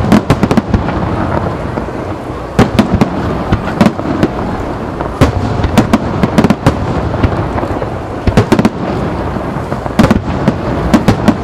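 Aerial firework shells bursting in a rapid-fire star-mine barrage: clusters of sharp bangs come every second or two over a continuous rumble of echoing reports.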